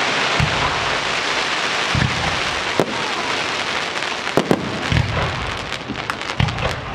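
A fireworks display: a dense, steady crackle of burning shells, with a deep boom every second or two and sharp cracks coming more often in the second half.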